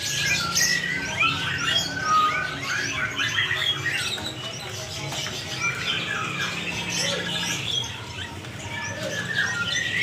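Many caged songbirds calling at once: a dense, overlapping chorus of short chirps, whistles and trills.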